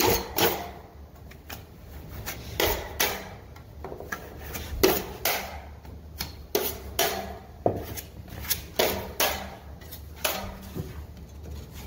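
Steel drywall knife scraping in short, irregular strokes over a paper-faced corner bead bedded in wet joint compound, roughly one to two strokes a second.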